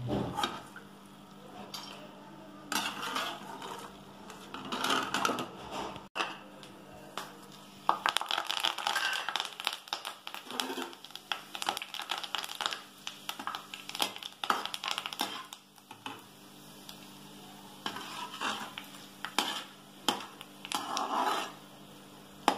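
Metal perforated skimmer scraping and clinking against a metal kadai while fried masala peanuts are lifted out of hot oil. About eight seconds in, curry leaves go into the oil and crackle and sizzle densely for several seconds, with more stirring clinks after.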